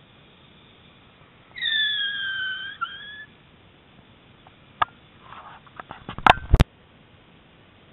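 Honda Hurricane electric-conversion motorcycle giving a high whine that falls slightly in pitch for just over a second as it slows to a stop. A sharp click follows, then a run of clicks and knocks ending in two loud thumps.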